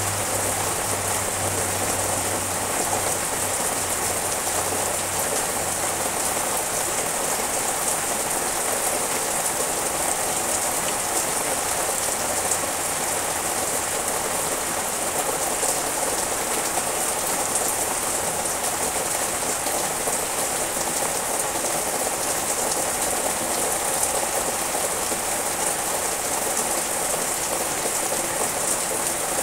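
Steady heavy rain falling on the leaves of garden trees and shrubs, an even, unbroken hiss.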